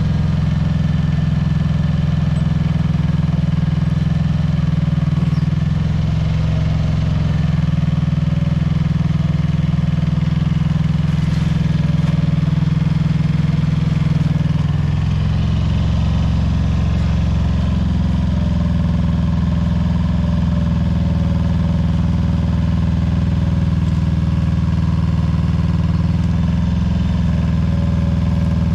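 Engine of a small excavator running steadily while it digs a sample hole, its pitch and load shifting slightly a few times.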